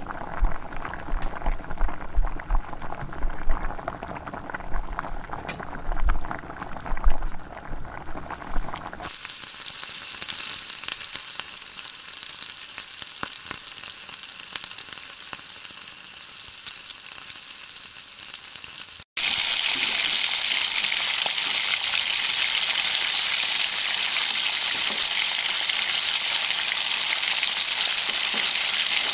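Food frying in a hot pan. The first part has irregular knocks and scraping, like stirring. After an abrupt change about a third of the way in, a steady sizzle takes over, and it turns louder after a second abrupt cut about two-thirds through.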